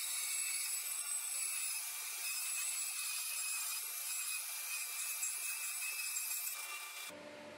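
BS250 bandsaw cutting a strip of oak: a steady hiss of the blade in the wood, which stops abruptly near the end.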